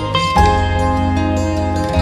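Background instrumental music, calm and melodic, with held notes over a sustained low bass; a new set of notes comes in about half a second in.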